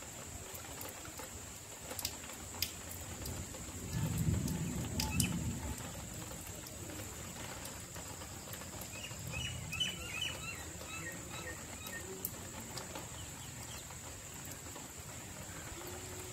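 Light rain almost stopping: a soft steady hiss with a constant high hum and a few scattered drip ticks. A low rumble rises about four seconds in and is the loudest sound, and a bird chirps several times around ten seconds in.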